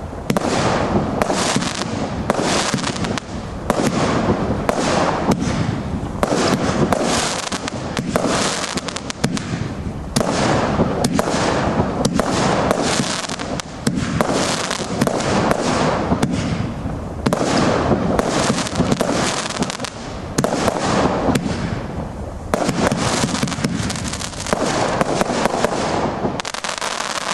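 Fireworks going off in a rapid, continuous barrage: overlapping bangs and crackling bursts, several each second, with only brief dips between volleys.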